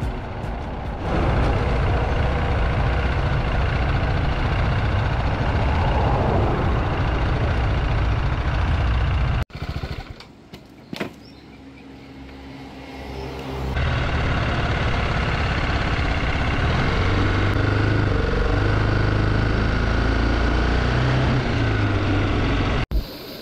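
Motorcycle engine and wind noise while riding, interrupted about ten seconds in by a few quieter seconds with a couple of sharp knocks, after which the engine and road noise return with an uneven low drone.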